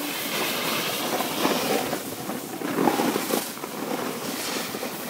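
Rushing scrape of edges sliding over packed snow as the rider carrying the phone moves down the slope, mixed with wind on the microphone. The noise is steady, with louder surges about a second and a half in and again about three seconds in.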